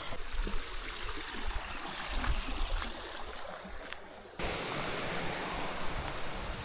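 Steady rush of a small flowing stream, with a few faint knocks; the sound changes abruptly and grows louder about four seconds in.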